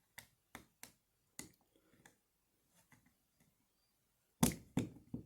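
Plastic Lego pieces clicking as they are handled and pressed into place: a few faint clicks, then three louder snaps near the end.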